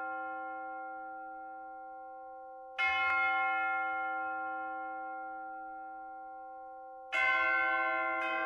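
Intro music of ringing bells: a bell struck about three seconds in and again about seven seconds in, each note left to ring and fade slowly, with another, lower bell struck near the end.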